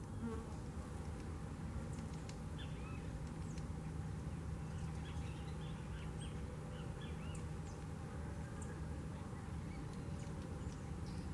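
Many short, high bird chirps scattered throughout, over a steady low hum.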